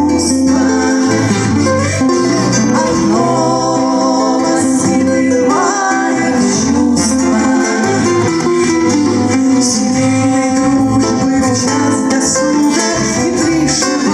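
Live acoustic band music led by acoustic guitar, playing an instrumental passage of a song.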